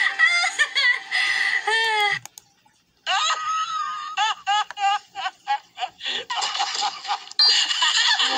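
Cartoon characters laughing, clip after clip, played from a computer and heard through its speakers. The laughter is high-pitched. It breaks off briefly about two seconds in, comes back as quick 'ha-ha' pulses at about four a second, and gets louder and denser near the end.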